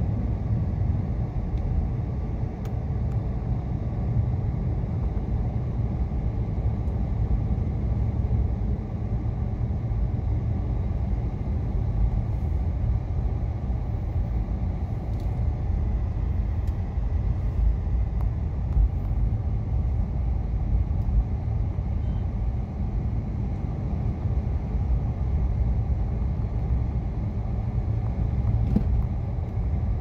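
Car driving on a snow-covered road, heard inside the cabin: a steady low rumble of tyres on packed snow with the engine running underneath.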